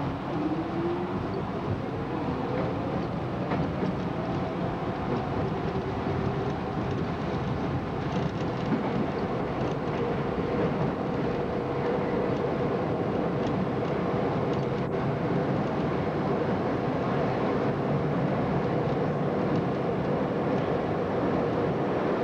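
R32 subway train running through a tunnel: a steady rumble of wheels on rail. The traction motors' whine rises in pitch over the first five seconds or so as the train gathers speed, then holds one steady tone, with a few faint clicks in the middle.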